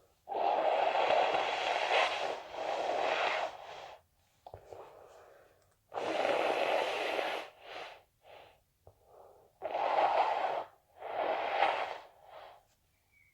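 A person with a head cold blowing a congested, snotty nose into a tissue. The first blow is long, about four seconds, and three shorter blows follow, with quieter sniffles and snorts between them.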